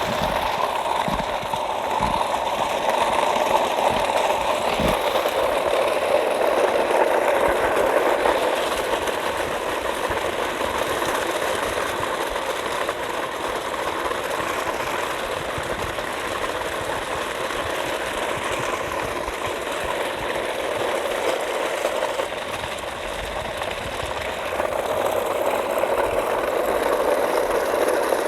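A small motor running steadily with a buzzing whir, a little louder at the start and near the end.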